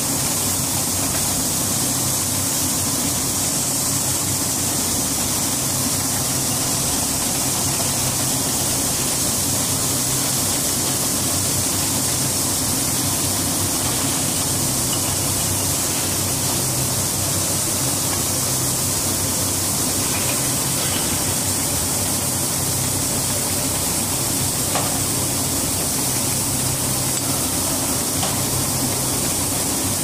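Glass bottle washing machine running: a steady hiss of water spraying inside the washer over a low, even motor hum.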